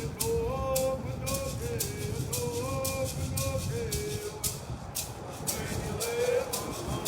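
A hand rattle shaken in a steady beat, about two shakes a second, under a slow melody of held notes that step up and down.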